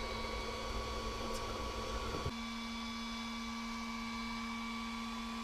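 JGAurora 3D printer humming steadily, its fans and motors giving a steady whine over a low rumble. About two seconds in, the rumble drops away and the hum settles a little higher.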